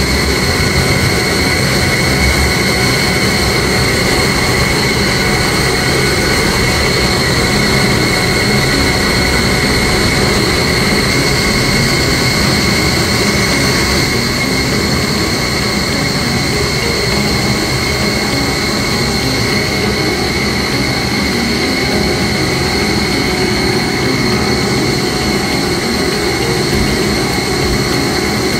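Steady drone of running chiller plant machinery: a low rumble with a constant high-pitched whine on top, unchanging throughout.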